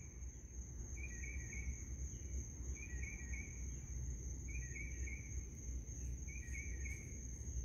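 Night insects calling: a steady high-pitched drone, with a short chirping call repeating about every one and a half to two seconds, over a low background rumble.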